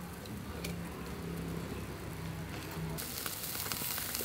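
Beef kidney grilling on a wire rack over charcoal: over a faint low hum, a loud sizzle starts suddenly about three seconds in, with a few sharp pops.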